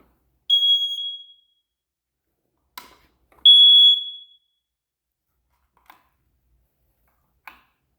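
Interconnected smoke detectors chirping twice: two loud, high single beeps about three seconds apart, each ringing out briefly. The chirping persists despite brand-new batteries, which the owner traces to one faulty detector on the interconnected system setting off all of them.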